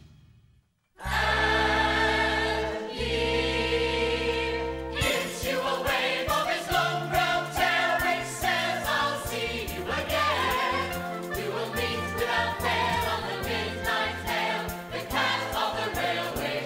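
Musical-theatre orchestra with chorus: after about a second of silence, two long held chords, then a brisk rhythmic dance passage with a steady beat.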